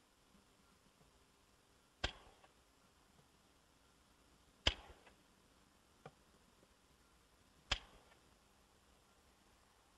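Blackboxx Niagara Falls Silber, a 13-shot 30 mm firework battery, firing its shots. Three sharp bangs come about two and a half to three seconds apart, each with a short echoing tail, and there is a fainter pop about six seconds in.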